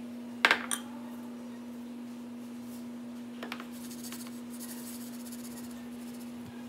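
Kitchen handling at the counter: a sharp double clack about half a second in as a utensil is put down on the granite, a couple of faint taps, then a light scraping as a metal springform pan is shifted and turned on the countertop, all under a steady hum.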